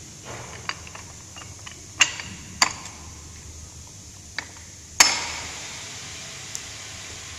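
Hard parts and tools being handled during repair work: a few separate sharp knocks and clacks, two loud ones about two seconds in and the loudest about five seconds in, ringing briefly.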